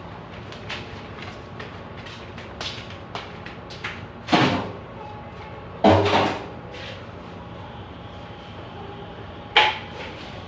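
Loud knocks and clanks of tools or materials being handled during pipe work, three of them sharp and heavy (about four seconds in, about six seconds in with a dull thump, and near the end), among lighter clicks and taps.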